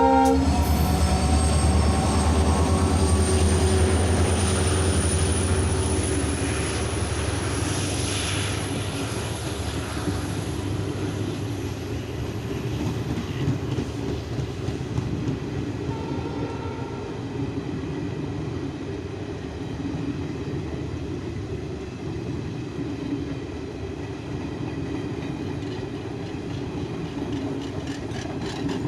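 Indian Railways Garib Rath Express passing at speed: the locomotive goes by first with a loud low hum and a high whine that rises slowly in pitch, then the coaches roll past with steady wheel rumble and clickety-clack over the rail joints.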